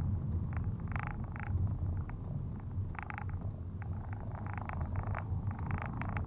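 Car driving, heard from inside the cabin: a steady low engine and road rumble, with irregular short bursts of higher-pitched rattly noise on top.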